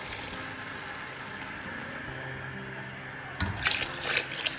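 Water poured from a jug into a metal pot of cooked lentils, a steady splashing stream that grows louder and choppier about three and a half seconds in.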